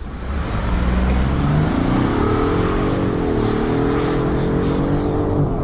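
2021 Ford F-150 PowerBoost hybrid's 3.5-litre twin-turbo V6 at full throttle on a 0–60 mph run. The engine note climbs in pitch, dips briefly about three seconds in and again near the end as the 10-speed automatic upshifts, then climbs again.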